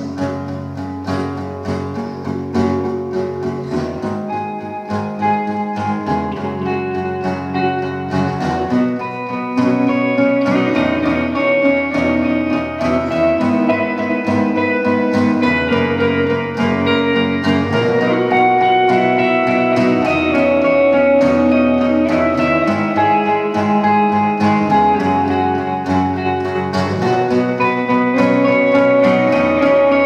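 Instrumental guitar duet: an acoustic guitar strumming chords under an electric guitar playing long held lead notes. The playing gets louder about ten seconds in.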